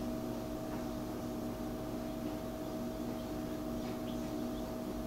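A couple of 12-volt computer fans in a homemade egg hatcher running, making a steady whirring hum with a few held tones.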